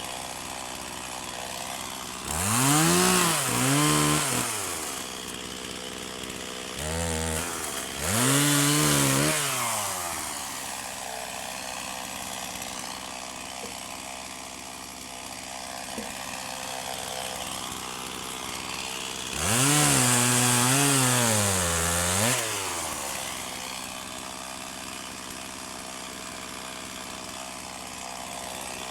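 Stihl MS250 two-stroke chainsaw idling and being revved up and back down several times: a double rev about two seconds in, a short blip and then a longer rev around eight seconds, and a rev held for about three seconds at about twenty seconds, dropping back to idle between them.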